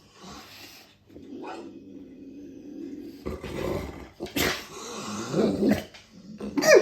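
A dog growling low and steadily, the growls growing louder and rougher about halfway through, ending in a sharp bark-like call.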